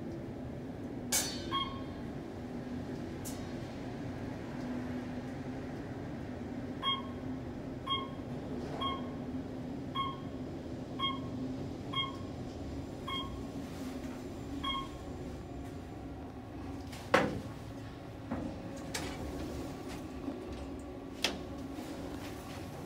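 Otis traction elevator car riding with a steady low hum, while eight short electronic beeps sound about a second apart. Then a sharp clack, and the car doors slide open near the end.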